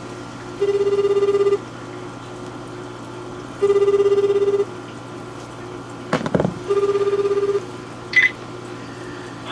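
Japanese telephone ringback tone heard over a phone's speaker: three one-second tones, about three seconds apart, while the outgoing call rings unanswered. A short knock comes about six seconds in.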